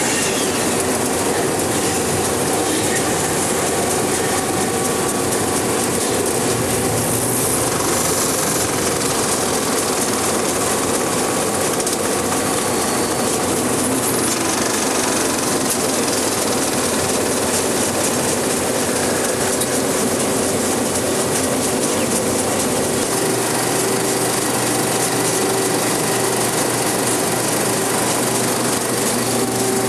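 Cinema film projector running in a projection booth: a steady mechanical clatter and whir at an even level, with a steady hum under it.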